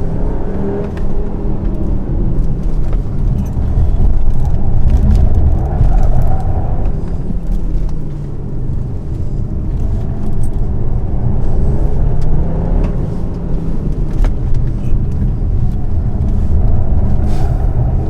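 Škoda Kodiaq RS engine being driven hard, its note rising and falling several times as it accelerates and changes gear.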